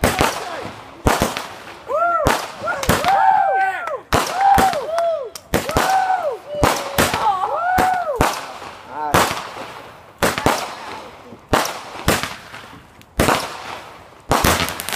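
Fireworks going off: a string of sharp bangs at irregular gaps of about a second. In the middle several overlapping whistling tones rise and fall.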